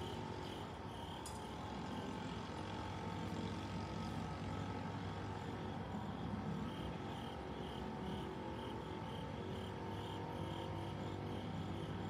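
Crickets chirping in a regular pulse, about two or three chirps a second, clearest in the second half. Under them runs a low steady hum.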